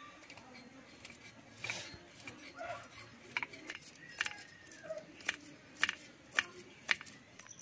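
Small fish being scaled and cut on a boti, a curved blade fixed upright at floor level: a string of short, sharp scrapes and clicks, about one a second, as each fish is drawn against the blade.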